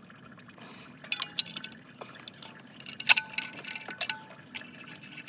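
Wrench or socket clinking against metal in an engine bay while bolts are worked loose. There are a few sharp metallic clinks, some with a brief ringing tone, and the loudest comes about three seconds in.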